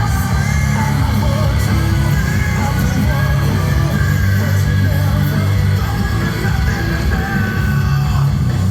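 Background rock music: a loud band with distorted electric guitar, heavy bass and a shouted vocal.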